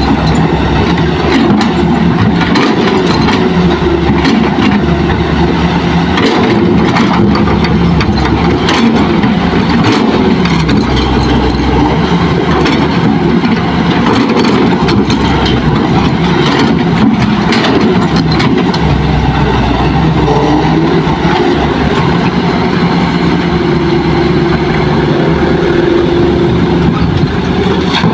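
Diesel engine of a Hitachi hydraulic excavator running under load, its pitch rising and falling as it digs, swings and dumps soil into a dump truck, with scattered knocks of soil and stones landing in the truck's steel bed.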